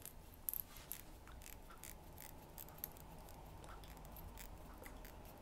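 Faint small clicks and scratches of thin Clapton wire being wound by hand around the rod of a coil-winding tool, over a low steady hum. The clicks are scattered and come mostly in the first three seconds.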